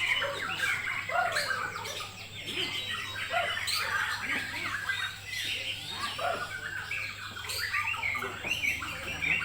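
Bornean shama (murai Borneo) singing a fast, varied, unbroken run of whistles, chirps and sliding notes over a steady low hum.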